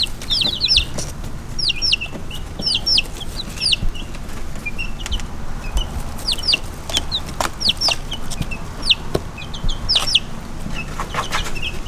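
Baby chicks peeping: short, high calls that slide downward, often in quick pairs or threes, repeated over and over.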